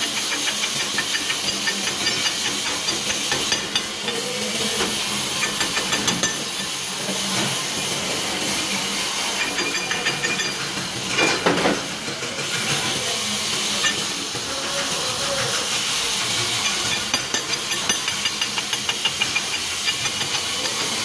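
Stick (shielded metal) arc welding: the electrode's arc hisses and crackles steadily as the weld is run. There is a brief louder burst a little past halfway.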